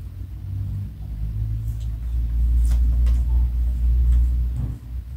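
A low, steady rumble that swells about a second in, holds strongest through the middle and drops off just before the end, with a few faint clicks over it.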